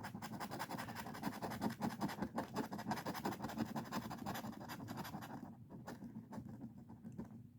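A scratch-off lottery ticket being scratched in quick repeated strokes, easing off and growing quieter about five and a half seconds in.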